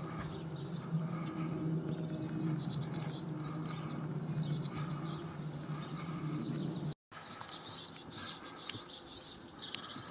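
Rapid high-pitched chirping of tits at a nest box whose brood is close to fledging, repeated all through. A steady low hum runs beneath it and ends at a brief dropout about seven seconds in.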